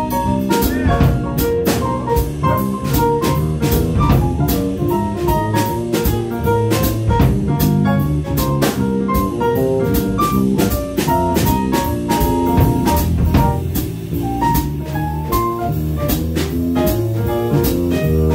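Small jazz band playing live: drum kit with evenly spaced cymbal strokes, double bass, guitar and keyboard.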